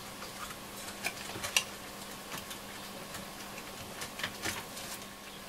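Scattered light clicks and taps from hands handling the chassis and case of a Nordmende Transita transistor radio. A few sharp ticks come at uneven intervals, the strongest about a second and a half in.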